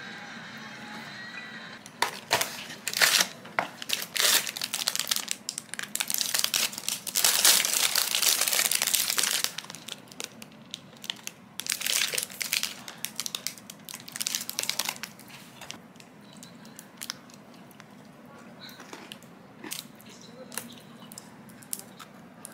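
Foil chocolate-bar wrapper crinkling and rustling as it is torn open and peeled back. It starts about two seconds in, is densest through the middle, then thins out to a few quieter rustles.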